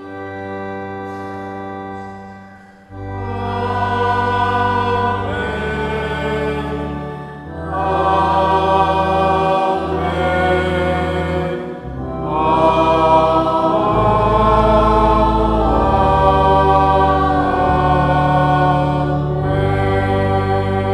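Choir singing slow, held chords over a deep sustained bass, softer at first and swelling fuller about three seconds in.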